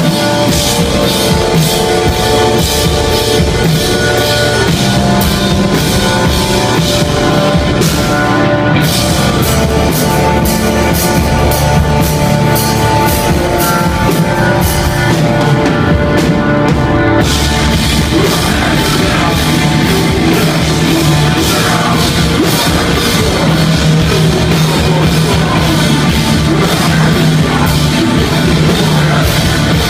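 Heavy rock band playing live and loud: distorted electric guitars over a drum kit keeping a steady beat. The cymbals drop out briefly twice, about eight seconds in and again around fifteen to seventeen seconds in.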